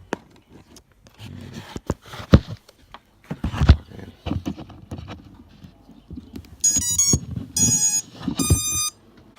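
Clicks and knocks of a LiPo battery being handled and plugged into an Eachine Wizard X220 quadcopter, then its startup beeps from the motors as the speed controllers power up. The beeps come in three short bursts near the end, the first stepping through several notes.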